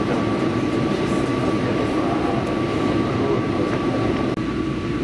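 Inside a commuter train moving slowly past a station platform: steady running rumble with a constant high tone. The sound changes abruptly about four seconds in.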